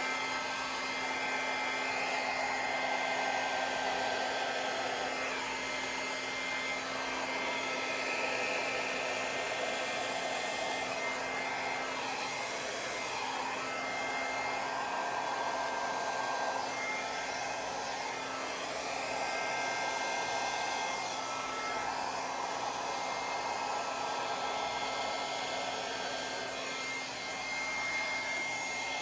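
Hair dryer running steadily on a high setting, a rushing of air with a faint steady hum and high whine, the loudness swelling and easing slightly as it is swept. Its air stream is pushing wet acrylic paint out across a canvas in a Dutch pour.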